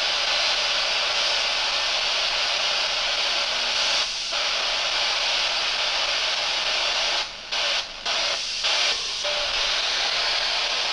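S-Box spirit box sweeping through radio frequencies: steady radio static hiss, cut by a few brief sudden dropouts past the middle.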